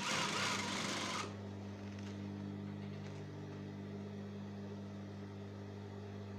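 A steady low hum throughout, with a short burst of hiss in the first second.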